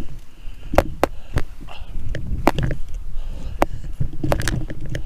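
Riding noise from a fixed-gear bike rolling over concrete: a steady low rumble of wind and tyres, broken by sharp clicks and knocks, with a quick cluster of them near the end.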